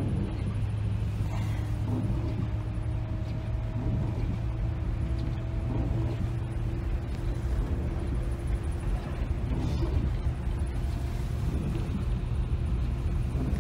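Tour coach's engine and road noise heard from inside the passenger cabin: a steady low hum and rumble while the bus drives.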